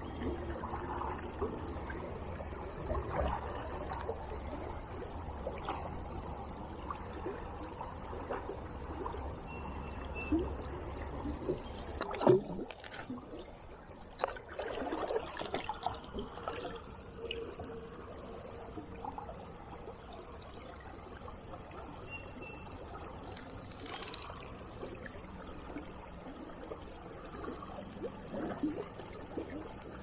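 Shallow river water sloshing and trickling around a person's legs as he wades. A sharp knock comes about twelve seconds in, followed by a few seconds of splashing as hands work in the water at his feet.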